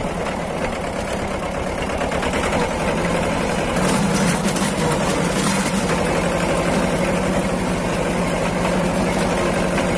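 Mahindra Jivo 245 DI compact tractor's two-cylinder diesel engine running steadily as the tractor drives slowly, heard close up from the driver's seat; it grows a little louder about three seconds in.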